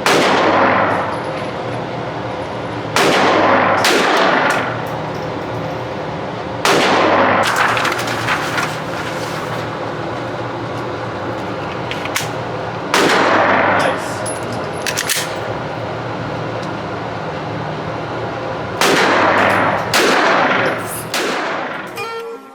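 Gunshots on a shooting range: about a dozen shots at uneven intervals, some coming two or three in quick succession, each trailing off in an echo.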